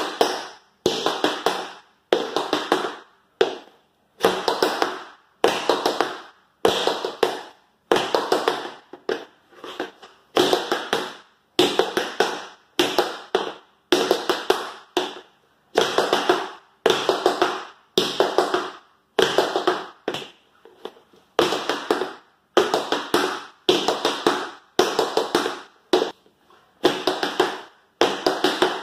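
Tap shoes' metal taps striking a wooden floor, dancing the buffalo step (drop, shuffle, step) over and over in an even rhythm: a quick cluster of taps about once a second.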